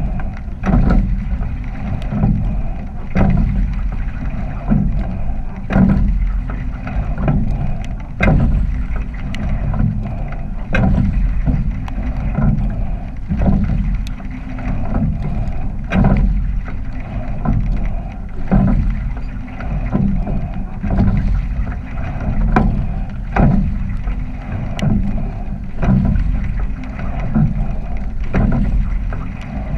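Rowing shell under way: a clunk of oars in their oarlocks about every two and a half seconds, one per stroke, over a steady rush of water and wind rumble on the microphone.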